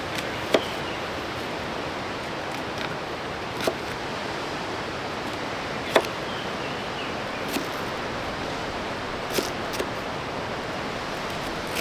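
Steady outdoor wind noise, with a few sharp, unhurried knocks of a knife striking a chopping board while onions are chopped.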